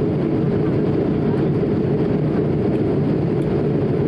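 Steady cabin noise of an Airbus A220-300 in flight, heard inside the cabin beside the wing: a low, even rumble of its Pratt & Whitney PW1500G geared turbofans and the airflow over the fuselage.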